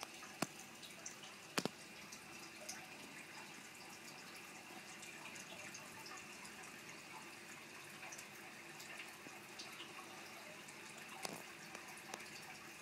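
Aquarium water running and dripping steadily, with scattered small clicks and one sharper click about a second and a half in.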